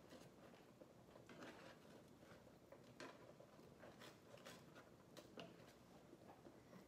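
Faint, irregular scraping and light clicks of a spatula stirring and scraping gravy around a skillet.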